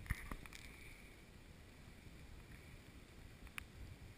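Faint low rustling and rumble on a GoPro's microphone as it moves through wet undergrowth, with a few light ticks near the start and one sharp click about three and a half seconds in.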